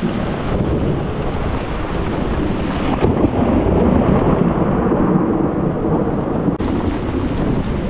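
Thunder rumbling low and steady over rain during a thunderstorm.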